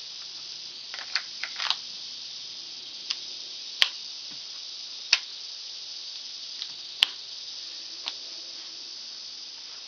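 A series of scattered sharp metallic clicks from handling a Ruger Mk III 22/45 pistol and its magazine while checking a fail to feed, which he puts down to a magazine issue. A steady high hiss runs underneath.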